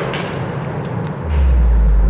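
Tail of a fireworks cake finale: a rumbling haze of echoing shots with a couple of sharp cracks near the start. About a second in, a deep low rumble swells up and grows louder.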